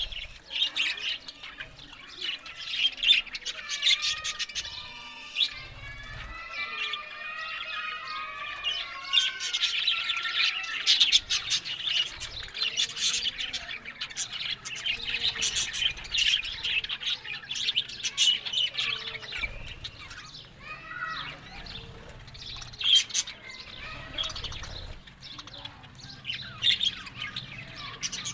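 Budgerigars chirping and chattering continuously, with a stretch of quick warbling song.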